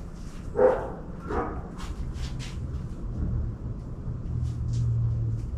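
A dog barks twice, about half a second and a second and a half in. Faint clicks and a low rumble run underneath; the rumble grows louder near the end.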